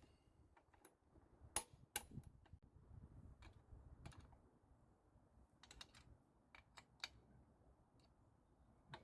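Faint, scattered sharp clicks and light knocks, irregular and a second or more apart at most, with near silence between them.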